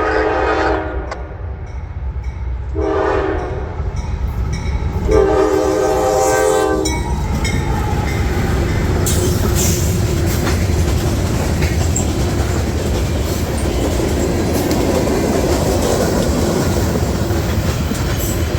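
A locomotive's multi-chime horn sounds in blasts: one ending just under a second in, a short one around three seconds, and a longer one from about five to seven seconds. The train then passes close by with a steady rumble and the clickety-clack of wheels over rail joints.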